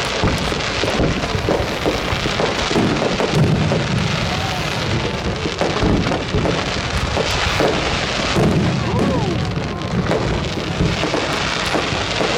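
Fireworks display: a dense, continuous mix of crackling and low booming bursts, with voices of a watching crowd underneath.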